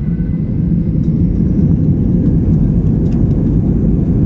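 Airbus A320 jet engine and airframe noise heard from inside the passenger cabin: a steady low rumble that grows a little louder in the first second, with small scattered rattles.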